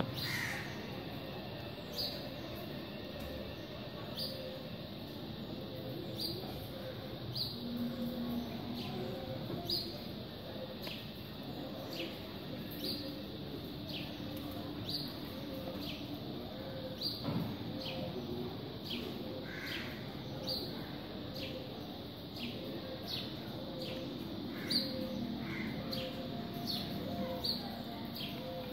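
A bird calling over and over, a short high note that falls in pitch, about once a second, over steady outdoor background noise.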